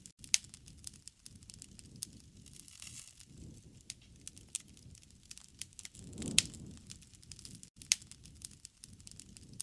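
Wood fire crackling with irregular sharp pops over a soft low rush of flame that swells briefly about six seconds in.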